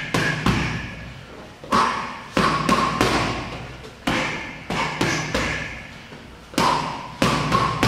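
Boxing gloves smacking against a partner's gloves in quick four-punch combinations of left jab, left hook, right cross and left hook. The combinations come three times, each a burst of four thuds, with a short pause before each new one.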